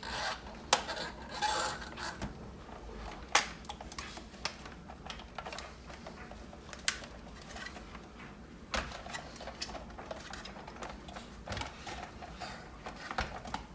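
Irregular sharp clicks and knocks with some light scraping from hands working the plastic housing of a Keurig Supreme coffee maker, refitting the base and releasing the cover's clips.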